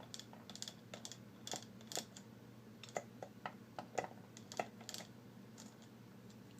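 Scattered light clicks and taps, irregular and a dozen or so, from a small lock and its parts being handled.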